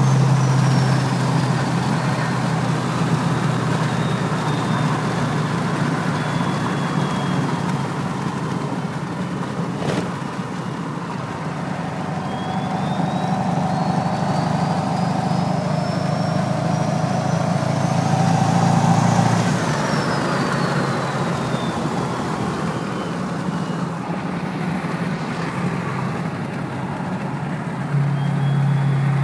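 Duramax V8 turbo-diesel pickup on the move, its sideways-mounted BorgWarner S366 turbo whistling loudly over the engine drone. The whistle falls in pitch as the throttle lifts, then climbs steadily as the truck accelerates, peaks about two-thirds of the way through, and falls away again off throttle. A single sharp click comes about a third of the way in.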